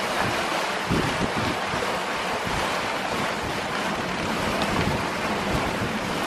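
Steady rush of the wake foaming past the stern of a sailing catamaran, with wind buffeting the microphone and a couple of low thumps about a second in.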